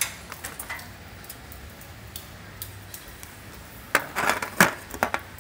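Light clicks and rattles of small hardware being handled, with a brief cluster of sharper clicks and scrapes about four seconds in.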